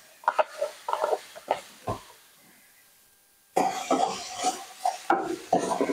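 Wooden spatula stirring and scraping crumbled tofu in a hot nonstick skillet, quick repeated strokes over a sizzle, starting about three and a half seconds in. Before that, a few short knocks and a quiet pause.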